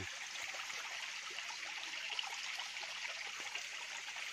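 Shallow forest stream trickling steadily, with faint scattered small ticks over the running water.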